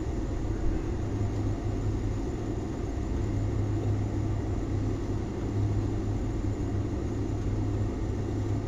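Steady low rumble with a constant deep hum underneath.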